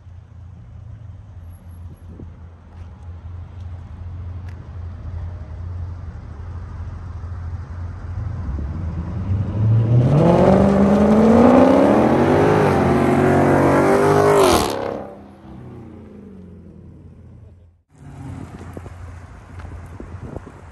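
Dodge Scat Pack V8 muscle car rumbling and growing louder for about ten seconds. It then revs hard, its pitch climbing, for about four seconds before the sound drops away abruptly, leaving a lower rumble.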